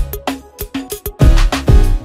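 Background music with a heavy kick drum and bass beat.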